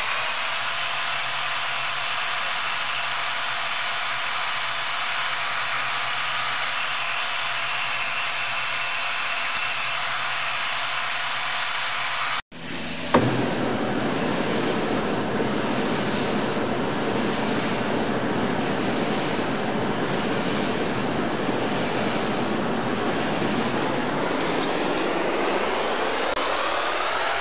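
Manual metal lathe running, its spindle and gears giving a steady whine as the chuck turns a steel workpiece. About halfway there is a brief break and a knock, and near the end the whine rises in pitch.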